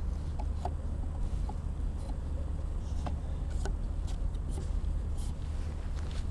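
Steady low outdoor rumble, with faint scattered ticks and rustles close to the ground, as of grass moved by a boot.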